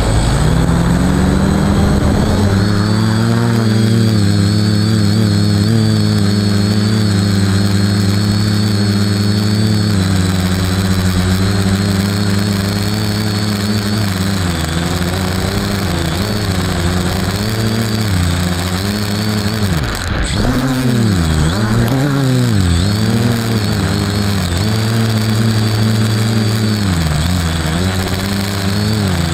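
FPV quadcopter's electric motors and propellers heard from its onboard camera. The motors spin up at takeoff to a steady buzzing hum with a high whine, then rise and fall in pitch again and again as the throttle changes in flight.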